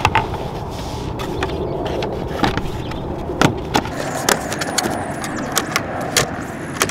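Irregular sharp clicks and knocks of screws, tools and plastic interior trim being handled as a car's glove box area is put back together, over a steady low background noise.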